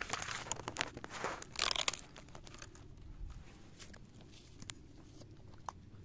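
Dry twigs and crusted soil crunching and crackling right at the microphone, a dense run of crackles in the first two seconds, then only scattered small snaps.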